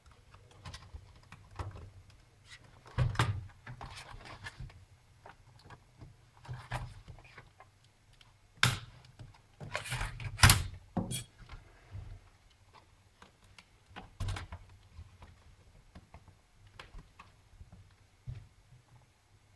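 Irregular plastic clicks and knocks as a netbook's plastic case is pried apart along its seams and its clips snap loose. The sharpest snaps come about nine and ten and a half seconds in.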